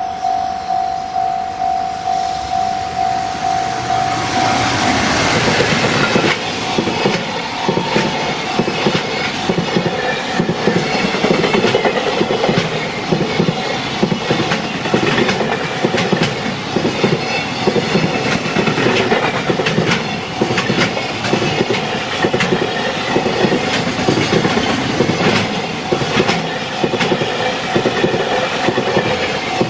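Level-crossing bell ringing in quick repeated strokes, then a freight train running over the crossing from about four seconds in, its wheels clattering over the rail joints in a steady rhythm. The crossing bell keeps ringing under the train and is heard clearly again at the very end.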